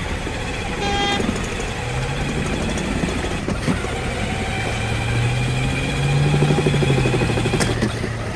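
Electric motor and gearbox of a D-Max Sport 4x4 battery-powered ride-on toy car humming as it drives, the hum setting in about two seconds in, growing a little louder past the middle and dropping away near the end, over a steady background din with a couple of short clicks.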